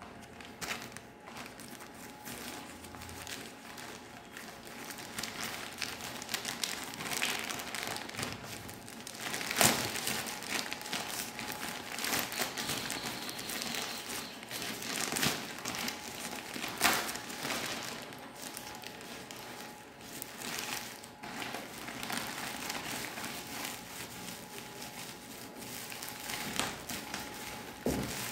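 A plastic courier mailer bag and its inner plastic wrapping being crumpled and pulled open by hand, giving continuous crinkling and rustling. A few louder, sharp crackles come about ten, fifteen and seventeen seconds in.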